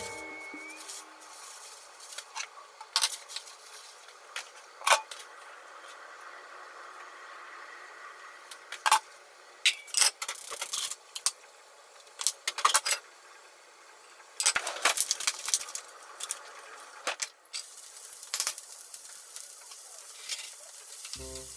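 Kitchen handling sounds: scattered clinks and knocks of utensils and cookware, over a faint steady hiss.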